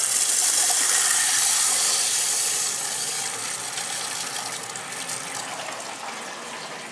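Water rushing loudly through newly replumbed pipes as the supply is turned back on, filling an emptied water heater tank. The rushing eases off over the second half.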